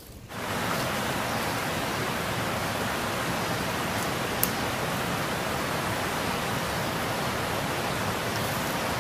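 Steady rush of water pouring out of a concrete culvert into a ditch, with one sharp click about four and a half seconds in.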